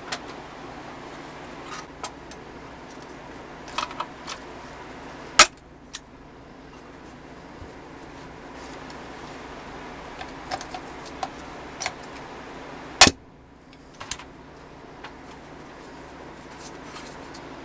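Metal clinks and knocks from a pressed-steel toy forklift body being handled and set down on a workbench, with two loud sharp knocks about five and thirteen seconds in, over a steady background hiss.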